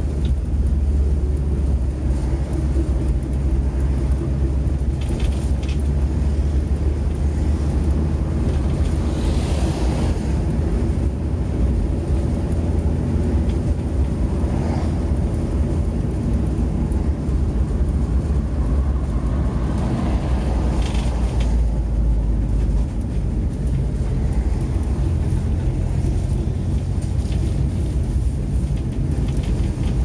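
Cabin noise of a VW T4 Transporter van on the move: a steady low engine drone and road noise, with a few short rattles standing out.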